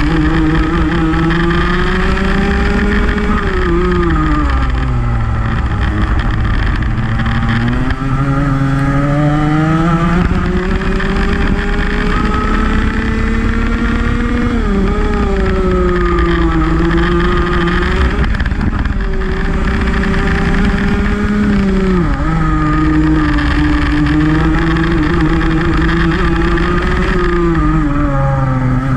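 Rotax Max 125cc two-stroke kart engine at racing speed, its pitch climbing steadily on the straights and dropping sharply as the kart brakes into corners, several times over.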